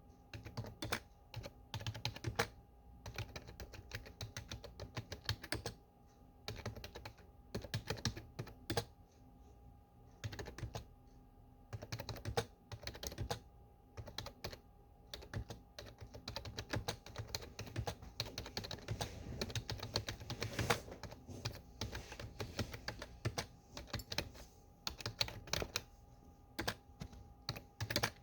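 Typing on a desktop computer keyboard: irregular runs of rapid key clicks broken by short pauses, over a faint steady hum.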